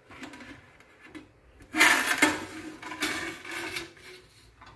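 Stainless-steel pressure cooker being opened: after a few soft clicks from the locking handle, the metal lid scrapes and rubs against the pot rim in two rasping stretches as it is worked free and lifted off.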